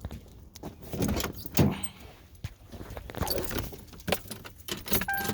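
Car keys jangling with scattered clicks and knocks, and a short steady beep near the end.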